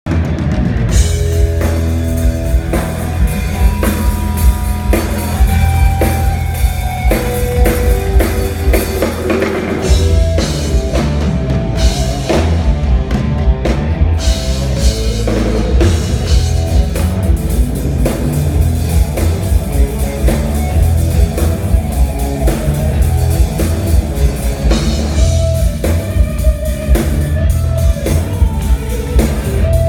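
Rock instrumental played by a band: a guitar lead of held, sustained notes over a steady drum kit beat and heavy bass.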